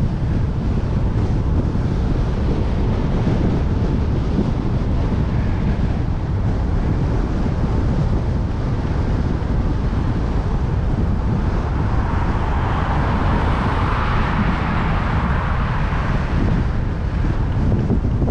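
Strong wind buffeting the microphone of a cyclist's camera: a continuous low rumble. In the second half, the tyre and engine noise of a car speeding past swells up and fades away.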